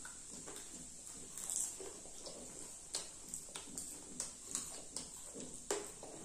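People chewing popcorn and french fries: irregular soft crunches, mouth smacks and small clicks, several a second.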